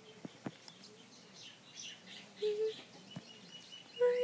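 Chickens vocalizing softly while pecking at seed: a short call about two and a half seconds in and a longer call that dips in pitch near the end, with a few light taps and faint chirps between.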